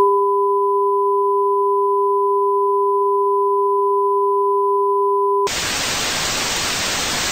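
Steady television test-card tone, two pitches held together without change, which cuts off abruptly about five and a half seconds in and gives way to the hiss of TV static.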